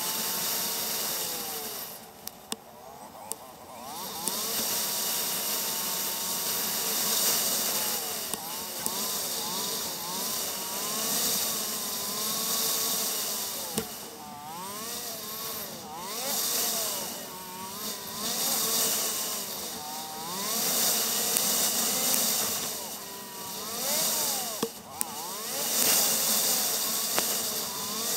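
Motorcycle engine running under way, its pitch gliding up and down with throttle and dropping briefly several times, over a steady rush of wind noise on the camera's microphone.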